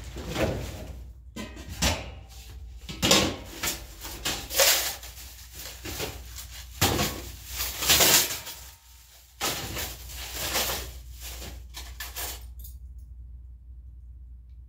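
Rummaging through stored belongings: irregular rustling of a plastic bag and knocks of objects being shifted and handled. It stops near the end, leaving only a low steady hum.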